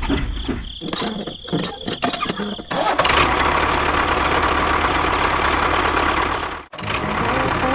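An engine cranking in quick rhythmic pulses with a high whine, catching about three seconds in and then running steadily, before cutting off suddenly near the end.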